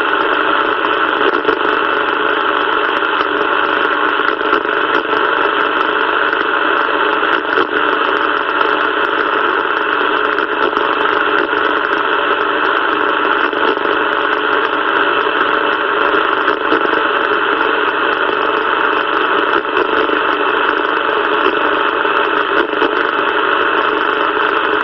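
Steady, even static hiss from a CB radio's speaker on the 27 MHz band, with no one transmitting.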